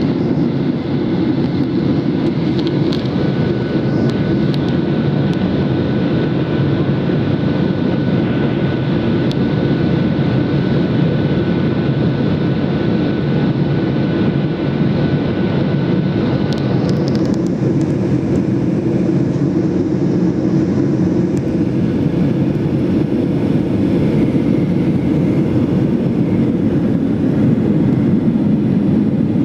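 Boeing 737-800 cabin noise in flight: the steady rumble of its CFM56 engines and the rush of air past the fuselage, heard close to a window seat. A thin steady whine runs underneath for about the first half, then stops about 17 seconds in as the hiss turns brighter.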